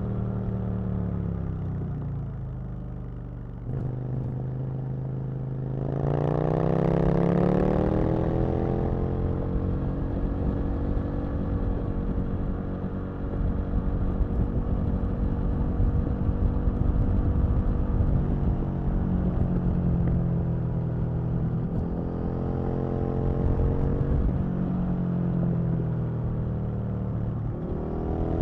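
Aprilia RSV Mille's 60-degree V-twin engine heard from the rider's seat: revs fall over the first few seconds, climb hard at about six seconds, hold fairly steady through the middle, dip and rise a couple of times, and climb again near the end.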